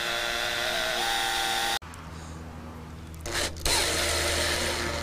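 Cordless drill driving self-tapping screws, its motor whining steadily, stepping up slightly in pitch about a second in, then stopping abruptly. After a pause the drill runs again in a short burst, then a longer run near the end.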